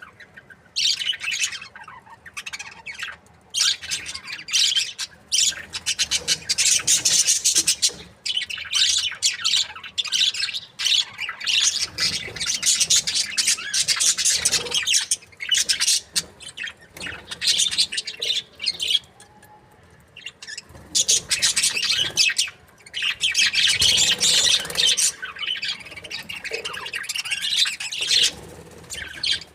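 A flock of budgerigars chirping and chattering, dense high-pitched chatter in runs of several seconds with brief lulls between.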